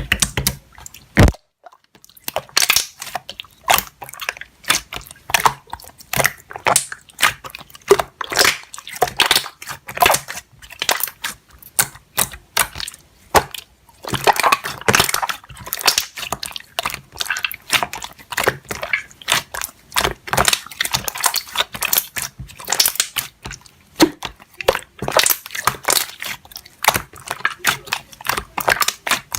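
Slime squished and pressed by hand, giving a dense run of irregular crackling pops and clicks.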